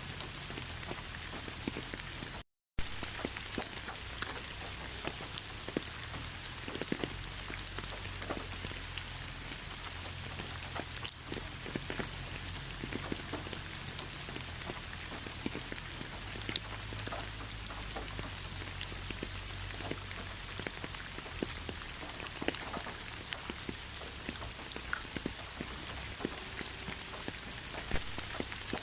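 Steady rain, with many separate drops ticking on a surface. The sound cuts out completely for a fraction of a second about two and a half seconds in.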